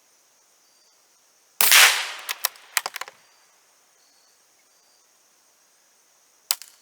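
.22 rifle firing a single shot, a sharp crack with a brief ringing tail. It is followed within the next second and a half by a quick series of small metallic clicks, and one more sharp click near the end.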